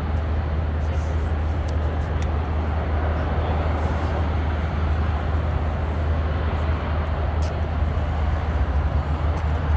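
Steady roar of the Blue Angels' F/A-18 Super Hornet jet engines running as the jets wait on the runway ahead of their takeoff roll.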